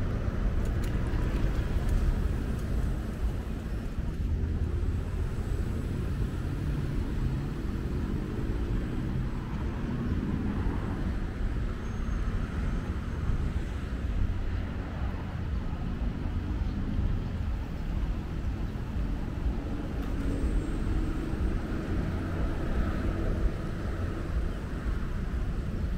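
City street ambience: a steady low rumble of road traffic, with vehicles passing now and then.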